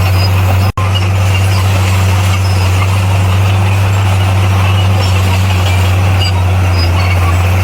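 Bulldozer's diesel engine running with a steady, loud low drone, broken by a momentary drop-out about three quarters of a second in.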